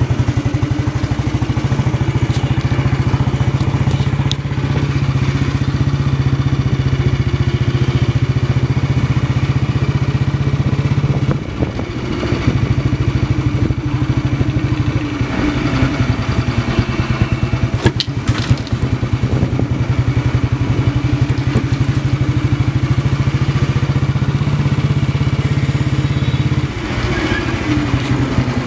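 Motorcycle engine running with a rapid, even beat while the bike is ridden. The engine note drops and changes about a third of the way in and again near the end.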